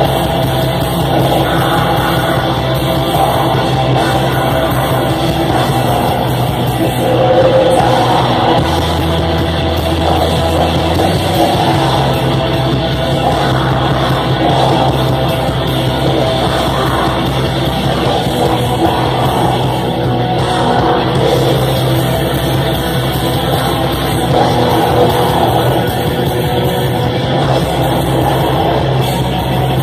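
Black metal band playing live and loud: distorted electric guitars over drums in a dense, unbroken wall of sound.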